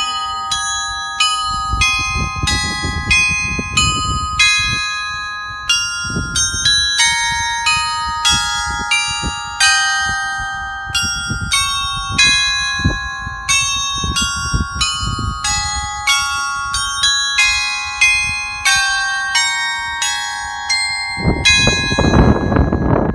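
Tuned bells ringing the 11 o'clock hourly chime, playing a melody of struck notes, about two a second, each left to ring on. A loud low rumbling noise rises under the bells near the end.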